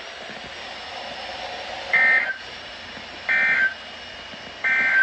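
NOAA Weather Radio SAME end-of-message code: three short two-tone digital data bursts about 1.3 seconds apart, closing the Required Weekly Test. Steady hiss from the receiver between bursts.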